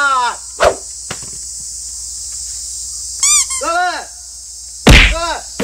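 Insects buzzing steadily at a high pitch, with people's voices making short wavering calls without words, and one loud thump about five seconds in.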